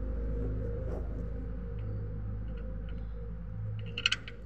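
A steady low rumble, with a short cluster of sharp metallic clicks about four seconds in.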